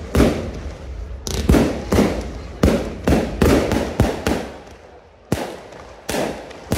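Aerial fireworks going off in a rapid series of about a dozen sharp bangs, each trailing off, with a brief lull about five seconds in.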